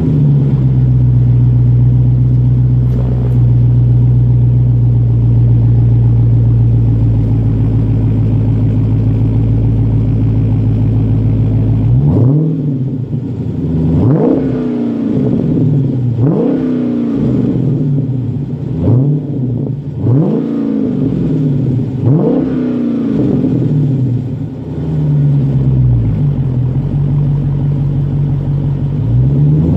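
Dodge Charger's 392 Hemi V8 through a Magnaflow exhaust, idling steadily, then blipped in neutral in a series of quick revs about every two seconds, each climbing and falling back. It settles briefly to idle and starts another rev near the end.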